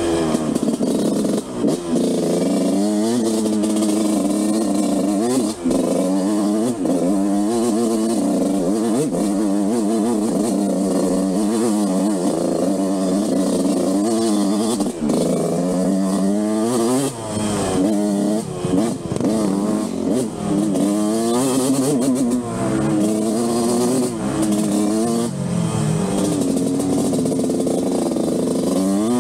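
Yamaha YZ125 two-stroke single-cylinder engine ridden on a dirt trail, its pitch rising and falling again and again with the throttle and gear changes.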